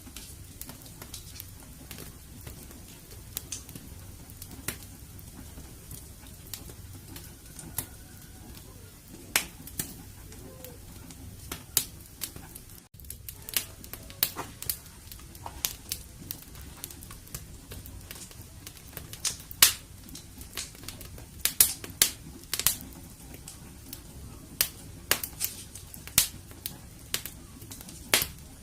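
Fireplace fire crackling: irregular sharp pops and snaps over a low steady rumble, the pops coming thicker and louder in the second half. The sound cuts out for an instant about thirteen seconds in.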